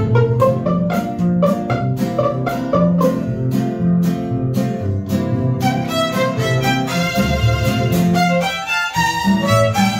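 Mariachi ensemble of three violins, guitarrón and guitar playing. A strummed, steady beat over a bass line fills the first half; from about halfway through, the violins carry a held melody over it.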